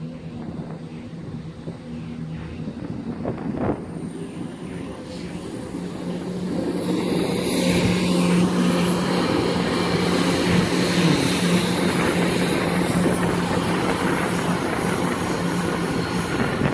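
CrossCountry Class 170 Turbostar diesel multiple unit pulling away, its underfloor diesel engines holding a steady note that swells and gets louder from about six seconds in as the train accelerates.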